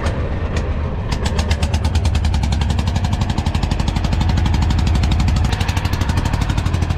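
Small wooden fishing boat's engine running, picking up about a second in into a rapid, even chugging beat as the boat gets under way.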